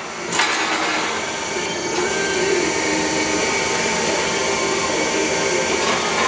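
Dahlstrom single tangent bender running while it forms a roll-formed HVAC filter frame: a steady mechanical running noise with a faint whine, and a sharp clunk about half a second in.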